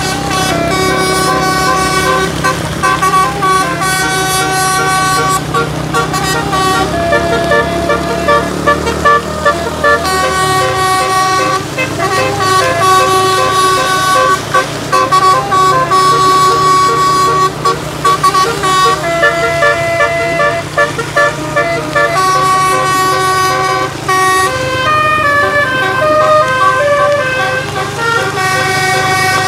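A bus's multi-note basuri telolet horn playing a long, loud tune, its notes stepping from pitch to pitch, over a low steady hum.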